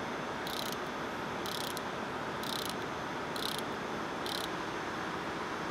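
Ratchet wrench being worked in strokes on the purifier's vertical shaft: five short clicking bursts of the pawl, about one a second, over a steady background machinery noise.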